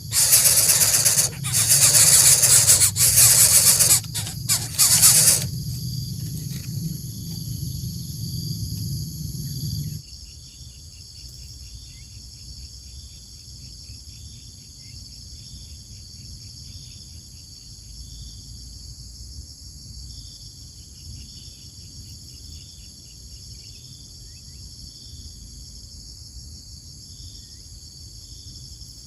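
Outdoor natural ambience: a steady high-pitched drone, with short high chirps repeating in runs over it. A loud rushing noise with brief breaks fills the first five seconds, and a low hum runs underneath until about ten seconds in.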